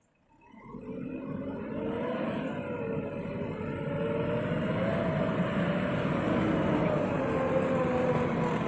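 Excavator diesel engine running steadily, fading in about half a second in and growing louder over the next few seconds, its pitch wavering slightly.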